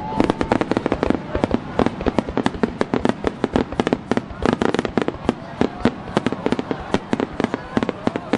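Fireworks display: a rapid, continuous barrage of aerial shells bursting, many sharp reports a second with no pause.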